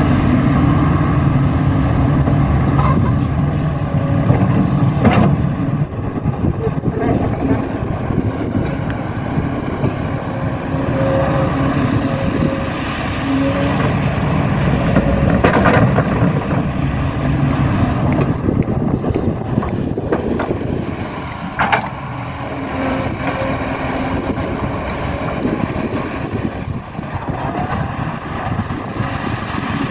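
Excavator engine running under load, its pitch rising and falling as the machine works, with a few sharp knocks in between.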